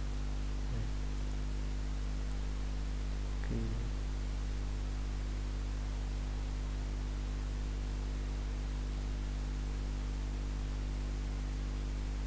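Steady electrical mains hum with a constant hiss, picked up by the recording microphone, with two brief faint low sounds about a second and three and a half seconds in.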